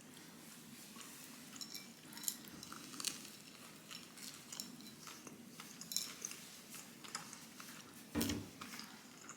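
Close-up chewing of a soft, cream-filled Berliner doughnut: quiet mouth sounds with many small wet clicks. There is a louder thump about 8 seconds in.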